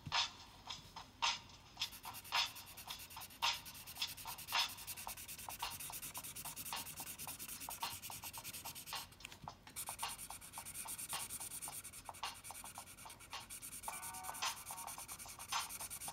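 Drawing tool scratching on paper: a few separate strokes, then a long run of rapid back-and-forth strokes from about two seconds in, pausing briefly about nine seconds in.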